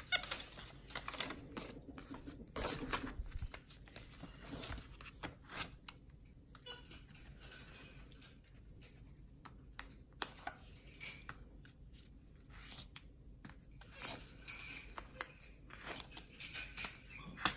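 A capuchin monkey scribbling with a pen on sheets of paper: faint, irregular scratching and paper rustling, with light taps of the pen.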